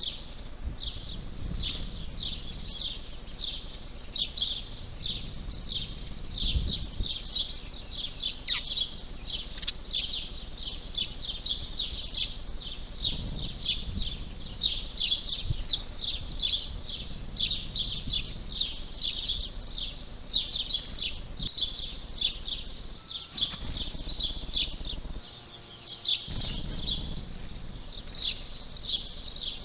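House sparrows chirping, a continuous run of short, repeated chirps, several a second.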